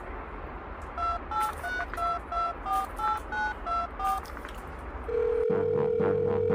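Telephone keypad dialing tones: a quick run of about eleven short two-note beeps, followed a second later by a long steady tone.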